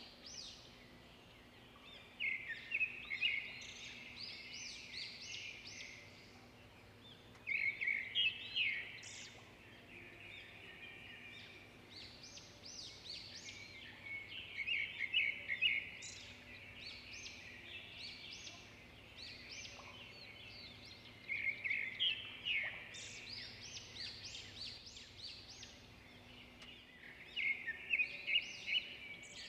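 A songbird singing in repeated bouts of quick, high chirping phrases, about five bouts a few seconds apart.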